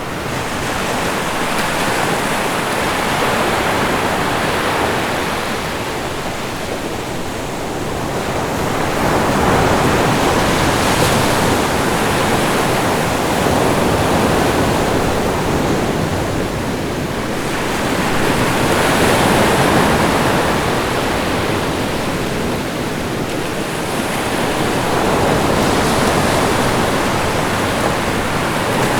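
Rough, stormy sea: waves crashing and surging continuously, the rush swelling and easing every few seconds.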